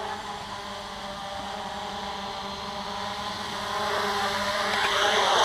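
Hubsan H501S X4 quadcopter's brushless motors and propellers buzzing steadily as it flies itself back on return-to-home. The buzz grows louder from about four seconds in as the drone comes closer.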